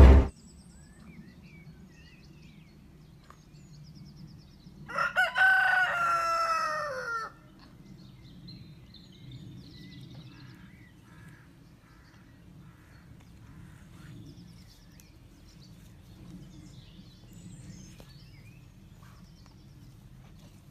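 A rooster crowing once: a single pitched call of about two and a half seconds that falls in pitch at its end, over a faint low background.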